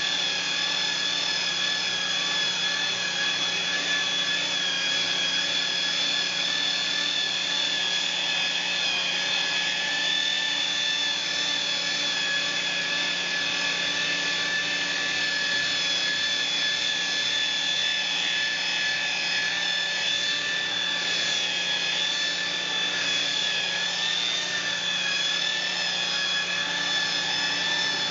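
Makita electric rotary polisher with a wool pad running at a steady speed, its motor giving a constant whine as the pad buffs a solid surface countertop to a gloss finish.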